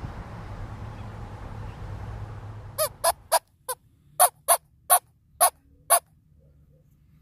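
Homemade bellows squirrel call, a rubber bellows fitted to a shotgun-shell body, worked to give about nine short, sharp barks in an uneven run over some three seconds, imitating a squirrel's bark. Before the barks, a steady outdoor rumble that cuts off.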